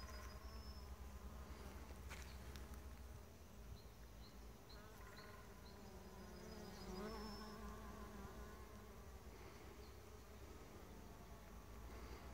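Bees buzzing as they forage on flowering willow catkins: a faint, wavering hum that swells about seven seconds in as a bee passes close.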